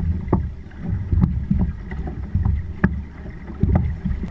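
Water slapping and knocking against a drifting boat's hull, with wind buffeting the microphone as a rough low rumble. Sharp knocks come every half second or so.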